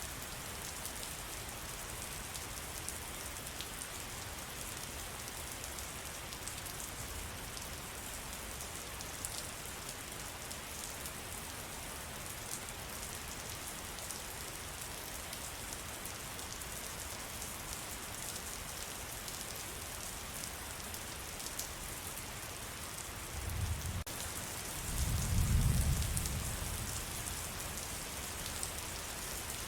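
Steady rain falling in a forest, an even hiss full of small drop patters. Near the end a low rumble swells for a few seconds and fades.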